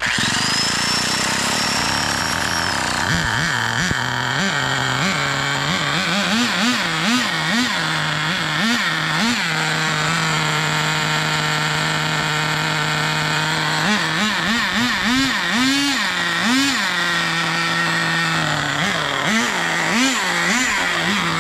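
Small two-stroke nitro RC car engine fitted with a miniature turbo, running on the bench and revved in repeated short throttle blips, each rising and falling, with a steady idle in between. A high whine sounds in the first few seconds and then drops away. The mixture is being leaned out because the engine was judged to be running rich.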